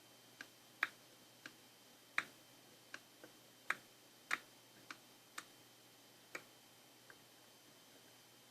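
Repaired intake manifold runner control (IMRC) valve clicking as it is operated: about a dozen sharp, irregularly spaced clicks, each with a short ring, with no engine running.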